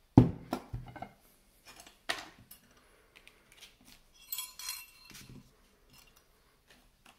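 Metal handling clatter of a small brass-and-steel lock and an aluminium parts tray: a sharp knock just after the start, a few lighter clicks, then a ringing metallic clink about four seconds in as the tray is set down, followed by faint small clicks.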